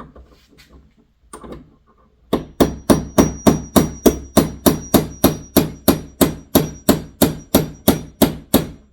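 Hammer striking a steel pin in a chipper-shredder's hammer-blade assembly, a fast even run of sharp metallic blows, about three or four a second, to drive the pin out. A few light clinks of handling come first, and a thin high ring hangs over the blows.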